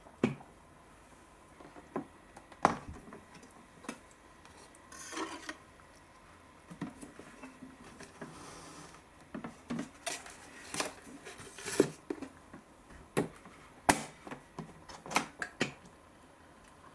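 Plastic clicks and knocks from a tabletop cup-noodle vending machine and paper noodle cups being handled: its clear door opened and closed, cups slid out and set down, with a few brief rubbing sounds.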